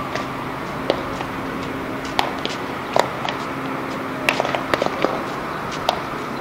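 Baseball smacking into leather gloves during a game of catch: a few sharp pops with other scattered light clicks, over a steady low hum.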